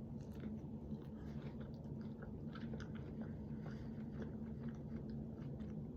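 A person chewing a mouthful of soft cream-and-fruit sandwich, with small irregular wet mouth clicks, over a steady low hum.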